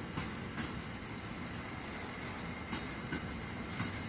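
Freight train of covered hopper cars rolling past at steady speed: a continuous rumble of wheels on rail, with a few irregular sharp clacks as wheels pass over the track.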